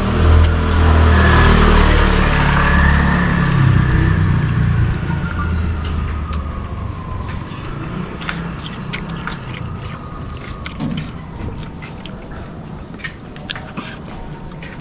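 A motor vehicle passing close by, loudest in the first few seconds and fading away over about six seconds. After that come small clicks and slurps of noodles being eaten with chopsticks.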